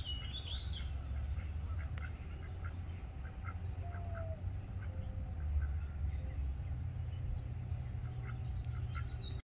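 White domestic duck calling in a string of short, faint quacks. The duck is hollering for its flock, which has already left. A steady low rumble runs underneath, and small birds chirp briefly at the start.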